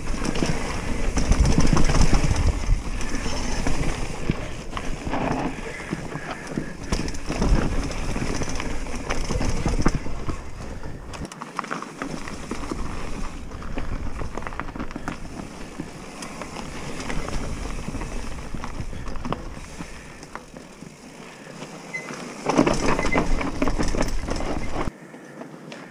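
Commencal Meta Cromoly steel hardtail mountain bike riding down a rocky dirt singletrack: tyres rolling and crunching over dirt and stones with the bike rattling, under a low wind rumble on the camera microphone. It gets louder for a few seconds near the end.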